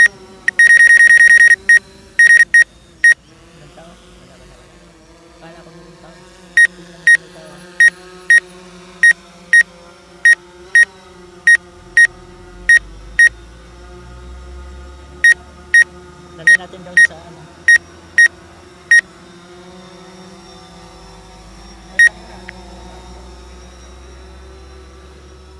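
Short, high electronic beeps from a DJI Phantom 4 drone's remote controller: a rapid run about a second in, then spells of even beeps about two a second, over a steady hum.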